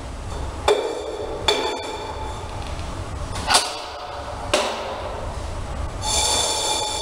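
A handful of sharp knocks and clinks as small cups and a board are handled and set down on a hard floor. Four quick knocks are followed near the end by one clink that rings on for about a second, over a low steady room hum.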